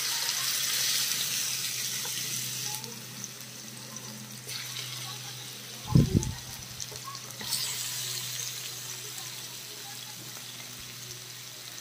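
Raw marinated chicken pieces sizzling in hot oil in a frying pan as they are dropped in. The sizzle is loudest over the first three seconds, then lower, flaring again about four and a half and seven and a half seconds in as more pieces go in; a brief low thump comes about six seconds in.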